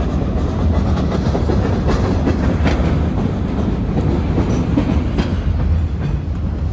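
Canadian Pacific freight cars rolling past on the rails: a steady, heavy rumble of wheels on track, with a few sharp metallic clanks and clicks.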